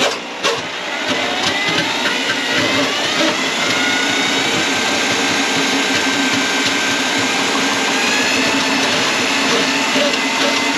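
An electric motor spinning up, its whine rising over the first few seconds, then running steadily, after a couple of knocks at the start.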